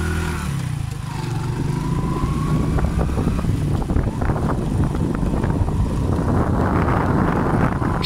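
A 100cc motorcycle engine revving as the bike pulls away, then running steadily under way. Wind noise on the microphone builds toward the end.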